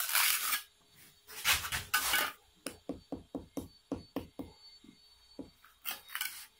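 A mallet tapping a brick down into its mortar bed: a quick run of about nine light knocks, roughly five a second, then one more, with scraping of brick and trowel on mortar before and after.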